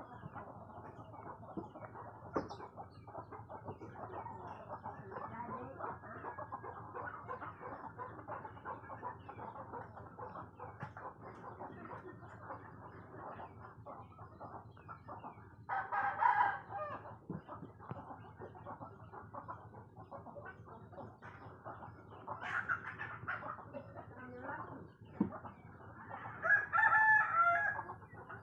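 Roosters crowing, loudest about halfway through and again near the end, over steady clucking of chickens.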